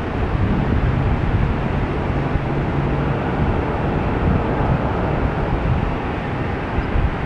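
General Electric GE90 turbofan engines of a Boeing 777 running as the jet rolls slowly along the runway, a steady, broad engine rumble.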